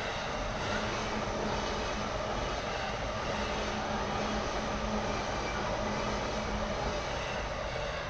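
Train passing a railway level crossing: a steady, continuous rush of wheel and rail noise, with a low hum running through most of it.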